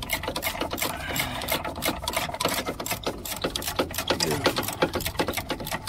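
Socket ratchet clicking rapidly and steadily as it backs out the 13 mm bolt of a rear anti-skid (ABS) bracket.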